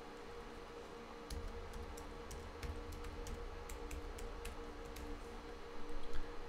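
Computer keyboard keystrokes: sparse, irregular single clicks as a password is typed, over a faint steady hum.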